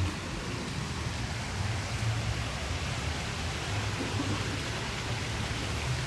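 A steady rushing noise spread evenly across low and high pitches, with a low rumble underneath.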